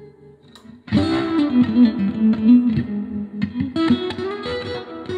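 Nash S63 Strat-style electric guitar played through an Origin Effects Revival Trem pedal into a Milkman Super Creamer 2x10 valve amp. A chord dies away, a louder chord is struck about a second in, and another about four seconds in.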